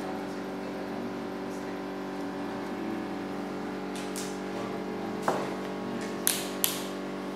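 A steady electrical hum made of several even tones, with three sharp clicks near the end, the last two close together.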